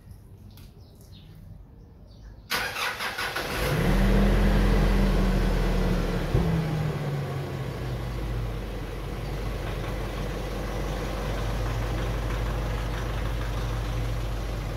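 Nissan Navara 2.3-litre turbo diesel engine starting about three to four seconds in, after a brief noisy cranking. It runs loud at a raised idle, then drops in pitch and level to a steady idle.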